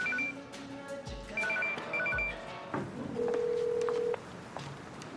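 Smartphone ringing with a repeating ringtone of short high beeps in two pitches, in quick groups. Near the middle it gives way to a single steady ringback tone, about a second long, on the calling end of the line.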